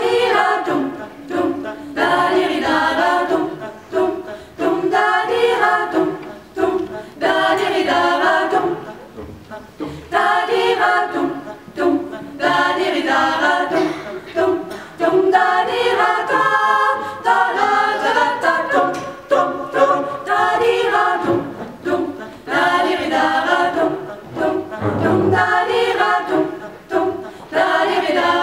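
Mixed choir of men's and women's voices singing a cappella, in short phrases with brief pauses between them.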